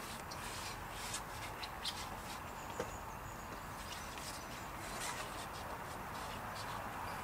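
Steady outdoor background noise with scattered light ticks and clicks and faint bird chirps.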